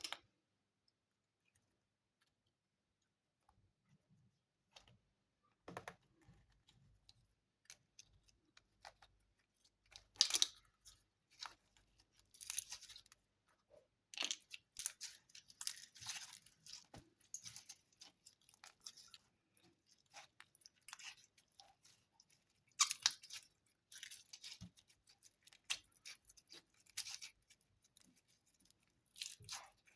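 Slime being squeezed, poked and stretched by hand, making irregular crackling and clicking pops in clusters that begin a few seconds in.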